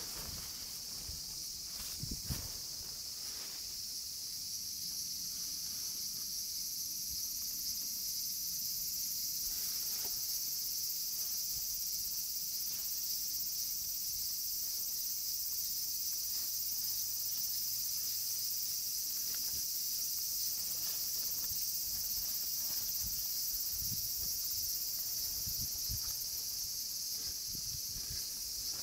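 A steady, unbroken high chorus of summer insects shrilling, with a few faint clicks and soft knocks of handling underneath.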